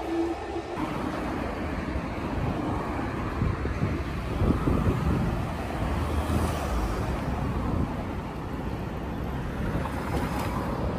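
City street traffic: road vehicles passing, with a steady low rumble of cars.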